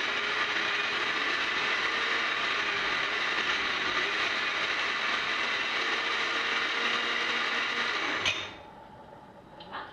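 Countertop blender motor running steadily as it blends milk and grated Gruyère cheese, then switched off abruptly a little after eight seconds in.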